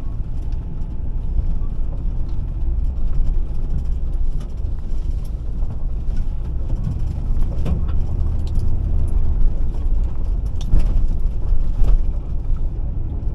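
Car driving slowly, heard from inside the cabin: steady low rumble of road and engine noise, with a few sharp knocks or rattles as it goes over bumps.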